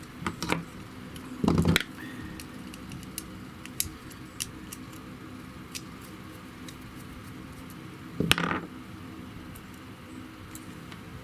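Small clicks and light clatter of thin wire and small plug parts being handled on a bench, with two louder knocks, one about a second and a half in and one near eight seconds.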